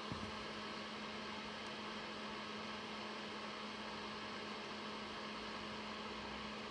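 Steady electrical hum, one constant low tone over a faint even hiss, with no distinct events.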